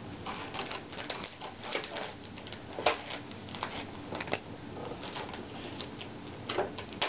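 Trading card packaging being handled, crinkling and tapping in an irregular run of crackles, sharpest about three seconds in.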